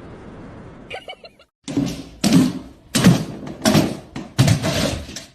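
A run of five loud thumps, roughly evenly spaced over a few seconds, after a few faint short sounds.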